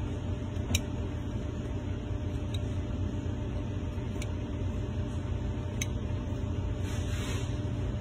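Clear plastic button caps being pulled off a slot-machine button deck and set down, giving a few short light clicks over a steady low hum.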